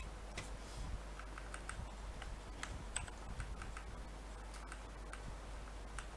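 Computer keyboard being typed on: an irregular run of light, quick key clicks.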